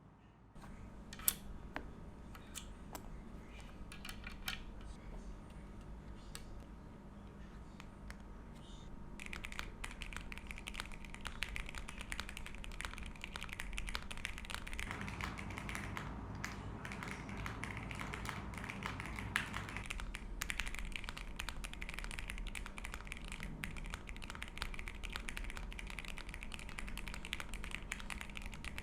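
Zuoya LMK81 mechanical keyboard with lubed Everglide Aqua King v3 linear switches and Akko Cream PBT keycaps being typed on. A few scattered keystrokes come first, then fast continuous typing from about nine seconds in.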